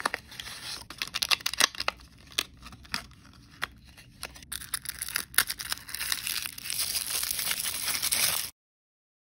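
Plastic and card packaging of an L.O.L. Surprise capsule clicking and crackling as the lid and clear plastic dome are pried off, then steady crinkling of a paper wrapper being unwrapped, which cuts off abruptly near the end.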